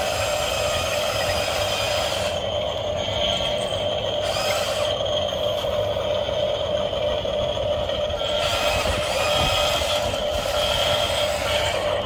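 Small electric motors and plastic gearboxes of remote-control toy construction vehicles, a tracked excavator and a wheel loader, running with a steady whirring whine and some clatter. A higher hiss cuts out twice in the middle as the motors stop and start.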